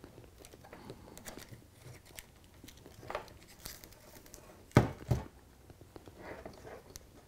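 Light rustling and clicking of hands handling wire, a soldering iron and a reel of solder, with two sharp knocks close together about five seconds in as the solder reel is set down on the wooden baseboard.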